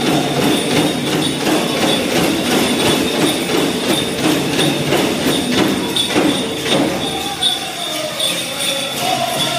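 Pow wow drum beating under the dense jangle of many dancers' ankle bells. Near the end a high singing voice wavers above it.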